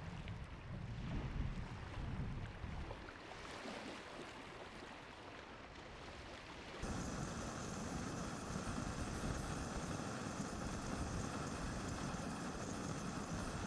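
Wind and small waves on a lake shore, then, about halfway through, a sudden change to a canister gas camping stove burning steadily with an even hiss under a pot.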